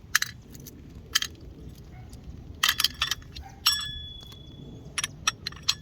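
Hand tools and small metal screws clinking and tapping, about eight sharp clicks, one of which rings briefly like struck metal.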